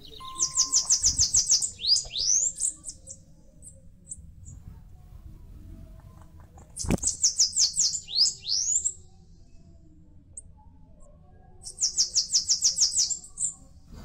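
Bananaquit (cambacica) singing three times, a few seconds apart: each song is a fast run of very high, thin notes ending in a few upward-sweeping notes. A single sharp knock comes about halfway through, just before the second song.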